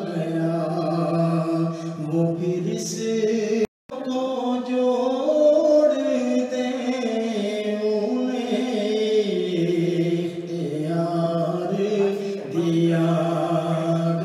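A man's solo voice singing a naat, holding long, gliding, ornamented notes in a chant-like style. The sound drops out completely for a moment a little under four seconds in.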